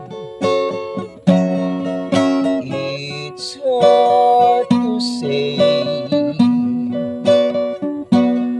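A man singing while playing an acoustic guitar.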